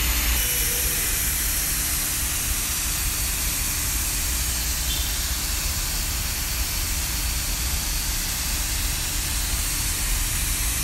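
Steady, unbroken hiss of rushing air over a low machinery drone with a faint steady hum, the continuous din of shipyard equipment around a ship resting on inflatable launching airbags.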